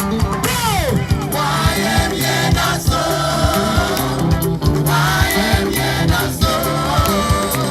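Gospel praise music: a choir singing over a band with a steady beat. There is a falling swoop about half a second in.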